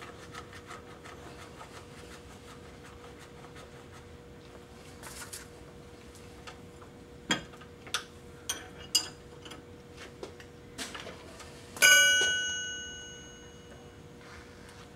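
Small metal clicks and handling noises as a drive adapter is fitted into a Bridgeport milling machine's spindle, then about twelve seconds in a single sharp metal clang that rings out and fades over about two seconds. A faint steady hum runs underneath.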